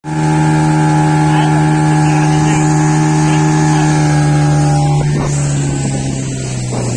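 Motorboat engine running steadily at speed, an even drone, that eases off and drops slightly in pitch about five seconds in as the boat slows.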